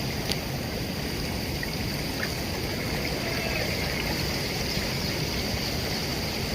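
Rainwater from an overflowing pond running off in a steady, continuous rush of flowing water.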